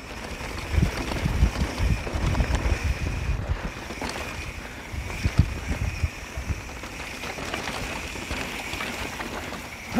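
Mountain bike descending a rough dirt trail: the tyres rumble over the ground with scattered knocks from bumps, under wind rushing over the microphone. The rumble is heaviest in the first few seconds.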